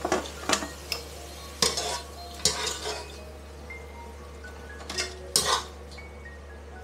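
Stainless wire-mesh skimmer scraping and clinking against a wok as parboiled pork pieces are scooped out of boiling water: a run of short scrapes in the first three seconds and two more about five seconds in, over a steady low hum.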